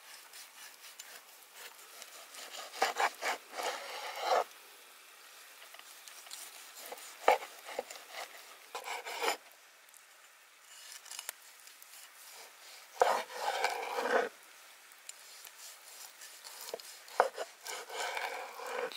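Large knife slicing through a seared steak on a wooden cutting board: about five bursts of rasping strokes through the crust, several marked by a sharp knock of the blade on the board.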